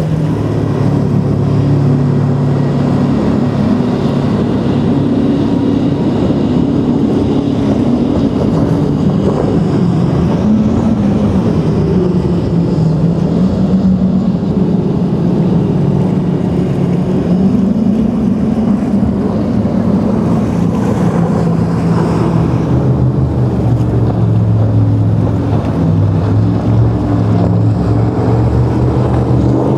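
Motorboat engines running, their pitch drifting slowly up and down, over a haze of wind and surf noise.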